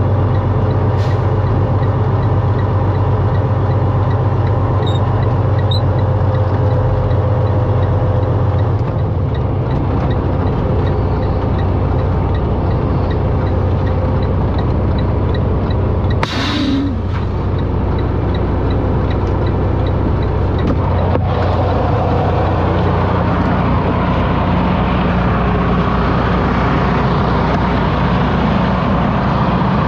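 Semi truck's diesel engine running, heard inside the cab, as the truck rolls slowly and settles to idle once it stops. About halfway through comes one short hiss of the air brakes.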